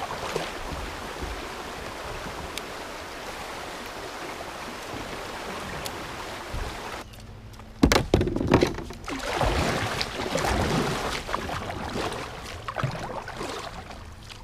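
River water rushing past a kayak in a fast, shallow current, a steady hiss. After a break about seven seconds in, louder, irregular splashing from a kayak paddle working the water.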